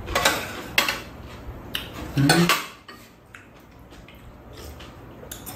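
Metal chopsticks and spoons clicking against bowls on a metal tray during a meal, a few sharp clinks in the first couple of seconds and then lighter ones. A short voice-like murmur from one of the eaters about two seconds in.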